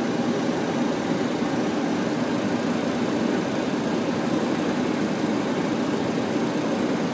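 Steady flight-deck noise of a Boeing 737-800 on final approach: the even rush of airflow over the cockpit and the engines running, holding level without change.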